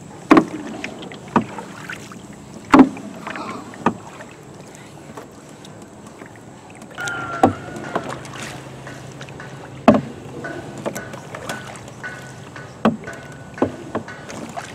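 Paddles stroking the water from a small hand-paddled river boat, with irregular sharp knocks about every second or two.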